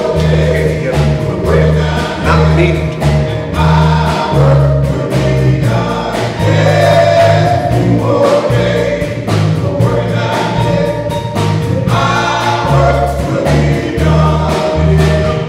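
A men's gospel vocal group singing together in harmony, with a deep bass line and a steady beat underneath.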